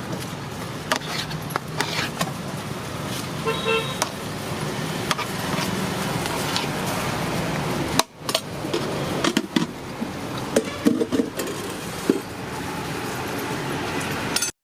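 Roadside traffic noise, with a vehicle horn honking briefly about four seconds in. Scattered clicks and knocks follow in the second half.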